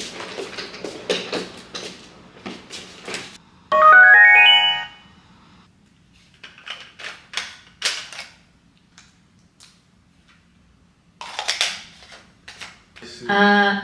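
Karaoke speaker's start-up chime: a loud, quick rising run of notes about four seconds in. Clicks and knocks from handling the microphone and speaker come before and after it.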